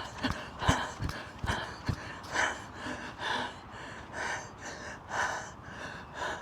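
A man panting hard from running, with rapid puffs of breath about twice a second. Quick running footsteps are heard for the first two seconds, then they stop while the heavy breathing goes on.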